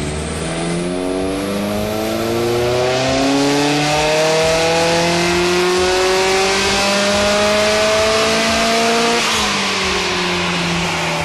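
Car engine, freshly fitted with Brian Crower stage 2 camshafts, revving hard under load on a dyno. The pitch climbs steadily for about nine seconds, then drops off as the throttle is lifted.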